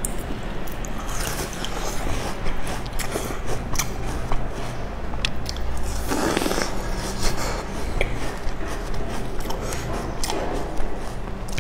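Biting and chewing a crumbly biscuit soaked in milk, with many small crackles and a fuller bite about six seconds in.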